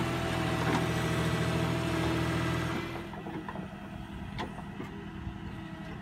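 Diesel engine of a John Deere tractor powering a Bull backhoe attachment, running hard and steady while the backhoe works. About three seconds in it drops to a quieter, lower running, with a single sharp knock a little later.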